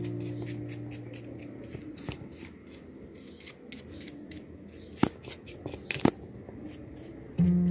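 Small paintbrush brushing over a coconut-husk plant pot in a quick run of short strokes, with two sharper clicks about five and six seconds in. Soft guitar music fades out at the start and comes back near the end.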